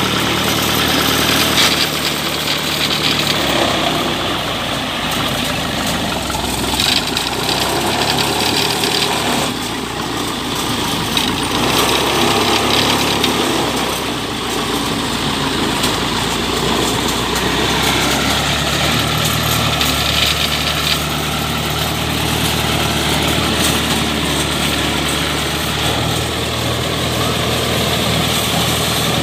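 Diesel engine of a tracked rice-harvesting machine running steadily, its note shifting now and then as the machine is worked.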